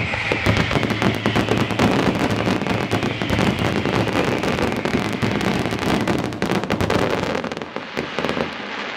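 Display fireworks firing a dense closing barrage: a rapid, continuous stream of shell bursts and crackling reports from aerial shells and ground effects, thinning out near the end.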